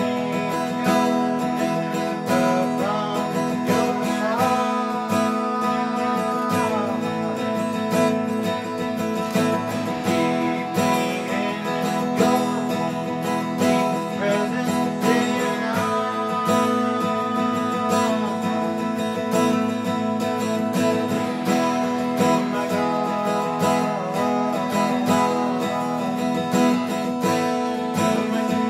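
A live worship song played on a strummed acoustic guitar, with an electric guitar playing along. Held melody notes slide in pitch twice.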